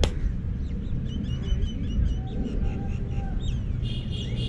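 Small birds chirping in short, repeated high calls over a steady low rumble, with one sharp crack right at the start.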